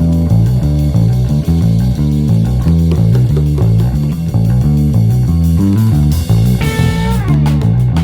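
Sire V7 five-string electric bass, played through a Kemper profiler, playing a busy, rhythmic bass line over the band's backing track. About six and a half seconds in, a falling pitch sweep runs through the backing.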